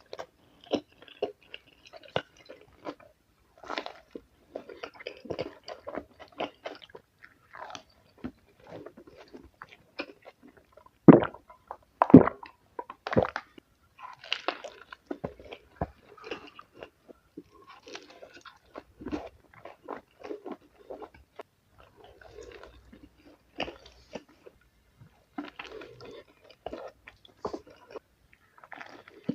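Close-miked eating of a kebab: repeated bites and chewing with crisp crunching, several louder crunchy bites about eleven to thirteen seconds in.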